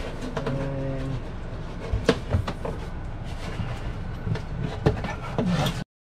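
Knocks and scrapes of hands and a razor knife working at the sealant along the edge of a built-in RV fridge, with a brief steady hum in the first second. A few sharp knocks stand out, and the sound cuts off abruptly just before the end.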